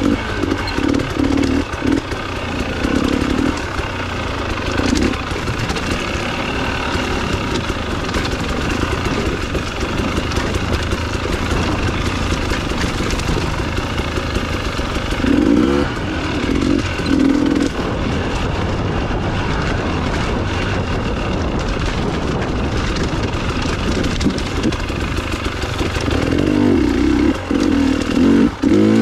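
Dirt bike engine running continuously on a single-track trail, revving up in louder surges near the start, about halfway through and again near the end.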